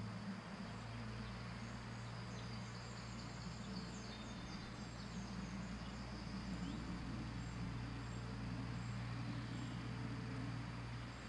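Steady outdoor background: a constant low hum under an even hiss, with faint high bird chirps scattered through it.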